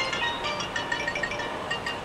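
Background music: a quick melody of short, bright, plinking notes that cuts off abruptly at the end.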